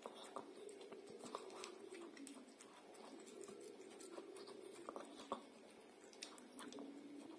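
Small dog (Biewer terrier) licking and chewing soft pâté from a glass bowl, faint irregular wet clicks and smacks of tongue and teeth on the food and glass.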